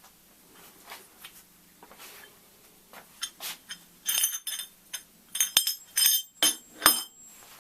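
Stainless steel hygienic fittings clinking and knocking as they are handled and set down, a quick run of sharp metallic clinks with a brief ring, busiest in the second half.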